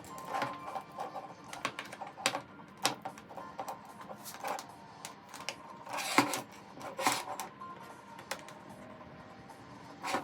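Irregular clicks and light knocks of hard objects being handled and set down, loudest about six seconds in, over faint background music.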